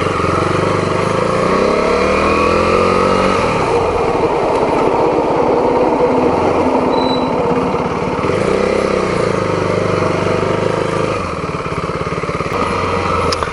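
2016 KTM Duke 390's single-cylinder engine under way on the road, its pitch rising as it accelerates in the first few seconds, then holding steady before dipping and rising again about eight seconds in.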